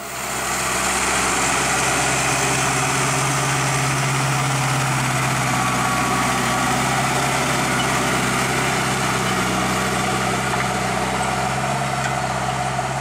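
A large diesel engine running steadily at a constant speed, with an even, unchanging hum.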